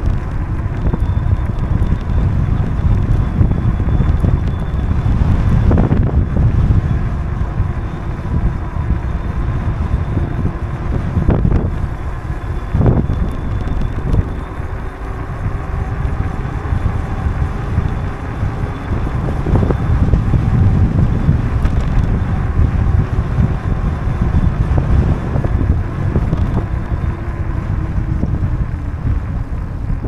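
Wind buffeting the microphone of a camera on a moving bicycle, over the rumble of tyres rolling on an asphalt path, with a few light knocks along the way.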